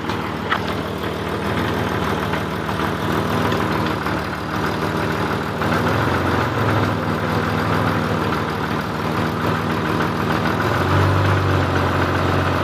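Jeep Grand Cherokee WJ running in drive in four-wheel drive with its wheels off the ground: a steady engine and driveline drone with clunking from the transfer case area, swelling louder about halfway and again near the end. The clunking comes from a failing CV joint on the Rzeppa front driveshaft at the transfer case end.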